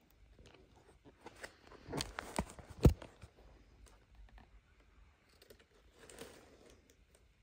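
Handling noise as a spiked track shoe is turned over in the hand amid its tissue-paper packing: rustling and clicks, busiest about two seconds in with one sharp click near three seconds, and a shorter patch of rustling about six seconds in.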